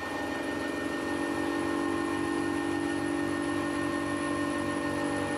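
Benchtop metal lathe running with a bar turning between the chuck and a tailstock live centre: a steady machine hum with a faint high whine, stepping up in level right at the start.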